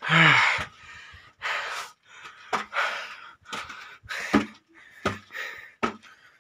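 A person breathing heavily while climbing steep stone steps, one hard breath about every second, the first a short voiced gasp.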